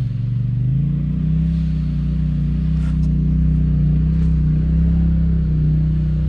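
Side-by-side UTV engine running at low revs while the vehicle crawls over rough trail, its pitch rising a little about a second in and then holding steady.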